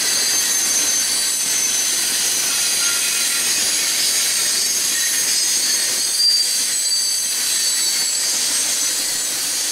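Freight train of covered hopper cars rolling past, its wheels giving a steady high-pitched squeal over the noise of the cars on the rails.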